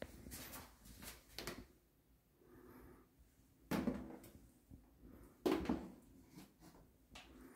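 Plastic seat ring and lid of an electronic bidet toilet seat being handled: a few light clicks, then two loud clunks about two seconds apart as the seat and lid are moved.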